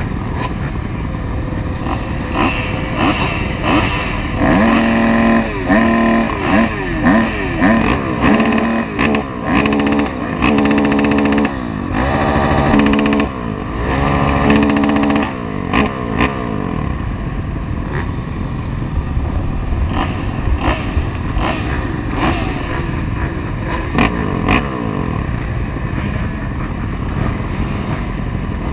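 Several motocross bikes running at the start gate, with a run of quick throttle blips revving up and down over the first half, then settling to ragged idling.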